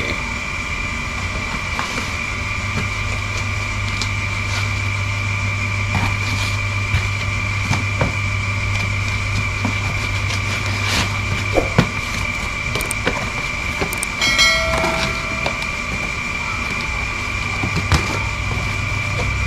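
A steady background hum with a constant high whine, under scattered clicks and knocks of boxes and parts being handled during unboxing, and a brief chirp-like tone about two-thirds of the way through.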